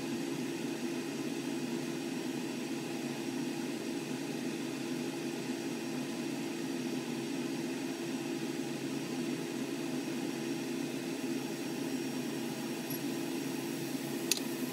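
Sliced ham frying in a stainless steel pan on an electric stovetop: a steady sizzle over a low, even hum, with one short click near the end.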